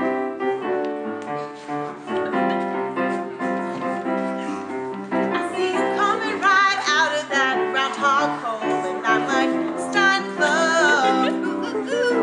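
Piano music with steady chords, joined about five seconds in by a singing voice with a wavering vibrato.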